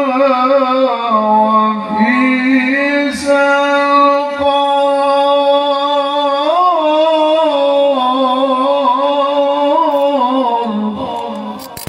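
A male Qur'an reciter (qari) chanting in the melodic tilawah style into a handheld microphone, drawing out one long ornamented phrase with a wavering pitch. There are brief catches about two seconds and four and a half seconds in, and the note trails off near the end.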